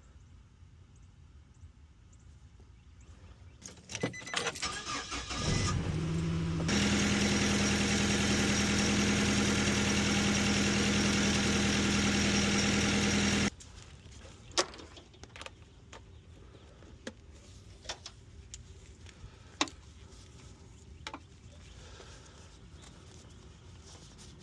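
2011 Nissan Frontier's 2.5-litre four-cylinder engine, which has a random multiple-cylinder misfire, being started: a few clicks, a rising whir, then a loud steady hum for about seven seconds that cuts off abruptly. Scattered light clicks follow.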